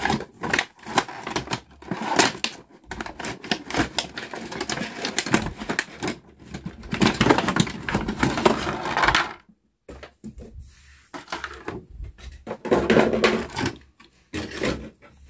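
A cardboard toy box being opened and clear plastic wrapping crinkling and rustling as it is peeled off a toy bus: a run of crackles, scrapes and clicks, with a short pause about ten seconds in before more rustling.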